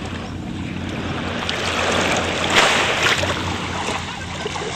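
Steady rushing water noise, like waves washing in, swelling about halfway through, with a low steady hum beneath.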